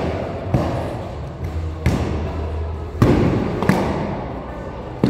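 Padded practice swords striking shields: four sharp thuds and slaps spread over a few seconds, the loudest about three seconds in, echoing in a large stone hall.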